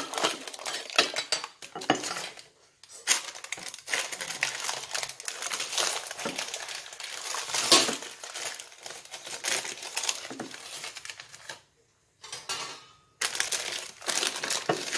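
Parchment baking paper crinkling and rustling as it is handled and peeled off a freshly baked tart base, with a few light clinks of dishware. It comes in irregular stretches, with short pauses about two and a half seconds in and again near the end.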